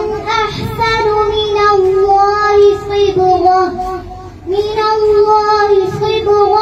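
A young girl's voice reciting the Quran in melodic tilawat style, holding long, wavering notes, with a short pause for breath about four seconds in.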